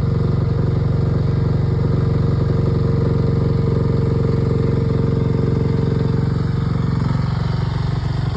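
Mini excavator's small engine running steadily with a fast, even firing pulse; its tone shifts slightly about seven seconds in.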